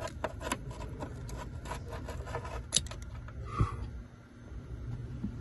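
Small irregular clicks, taps and scraping of a tool and a small metal retaining clip against plastic and metal parts as the dropped clip is fished out of a tight gap in the engine bay. There is a sharper click near the three-second mark and a knock just after, then quieter rustling.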